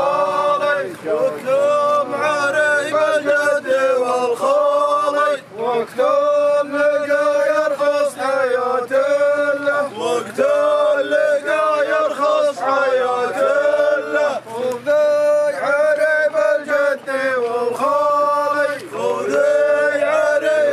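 Male voices chanting a sung Arabic wedding poem, layered like a choir, phrase after phrase with short breaks between lines.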